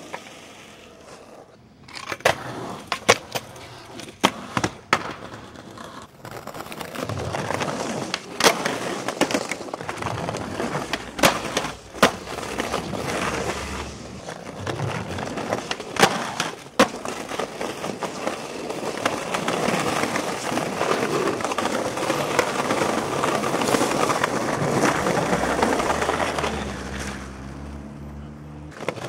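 Skateboard wheels rolling over street pavement, with repeated sharp clacks of the board popping, landing and slapping down.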